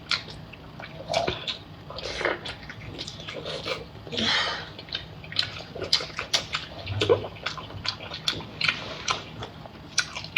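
Close-up wet eating sounds of someone chewing sea snail meat in sauce: rapid lip smacks and clicks, with a couple of longer slurps about two and four seconds in.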